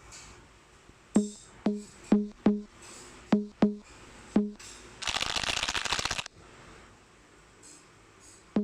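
A series of sharp, irregularly spaced knocks, each ringing briefly at the same low pitch, like a drum or wood block; just past the middle comes a dense rattling burst lasting about a second.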